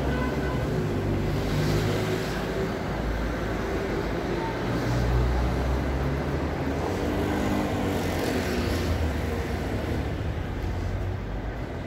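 Road traffic on a town street: cars passing with a steady low rumble of engines and tyres, easing off near the end.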